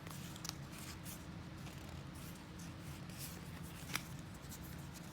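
Pokémon trading cards being handled and flipped through: soft paper rustling with a few light snaps, about half a second in and again about four seconds in, over a steady low hum.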